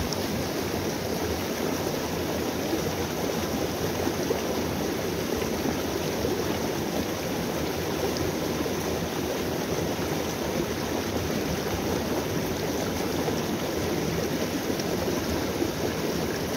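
A small stream rushing steadily as it pours over a rocky step into a pool, a constant splashing of white water.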